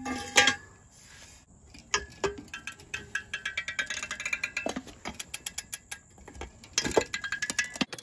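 Socket ratchet on a seized exhaust manifold bolt, worked with a pole slipped over it as a breaker bar: a couple of sharp metal knocks just after the start, then quick runs of ratchet clicks in the middle and again near the end.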